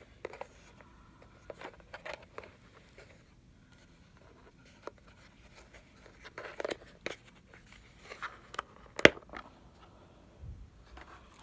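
Scattered plastic clicks and handling noises from a robot vacuum's dustbin being unlatched and pulled out, with one sharp click about nine seconds in.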